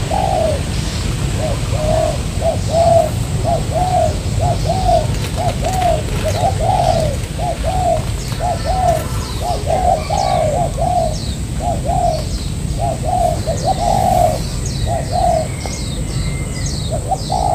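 Spotted dove cooing in a long run of short repeated notes, about two a second. Faint high chirps of small birds sound above it.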